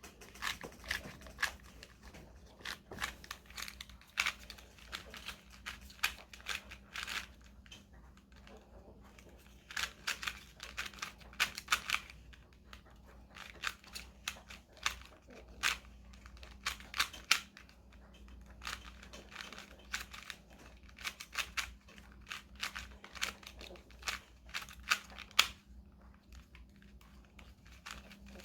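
A 3x3 Rubik's cube being turned quickly in the hands during a timed solve: rapid bursts of plastic clicks and clacks from the layers turning, broken by short pauses.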